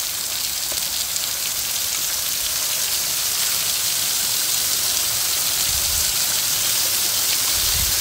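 Waterfall's falling water splashing onto wet rocks close by: a steady, bright hiss of spray and splashing that grows a little louder partway through.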